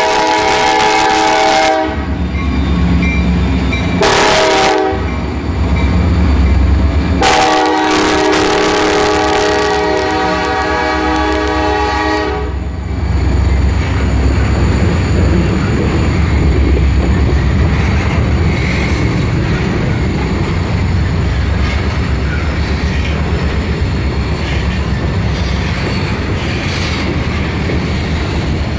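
Freight train passing close by, led by diesel locomotives sounding a multi-tone air horn: a blast that ends about 2 s in, a short one about 4 s in, and a long one from about 7 to 12 s. After that the locomotives' engines rumble and the covered hopper cars roll by with a steady clatter of wheels on the rails.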